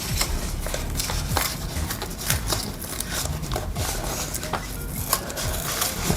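Homemade trading-card booster pack being carefully opened from the top by hand: irregular rustling, crinkling and small tearing clicks as the packaging is worked open.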